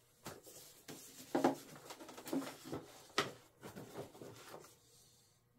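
Foam and plastic model-airplane parts being handled and shifted on a workbench. A string of knocks and rubbing sounds, the loudest about a second and a half in and again about three seconds in.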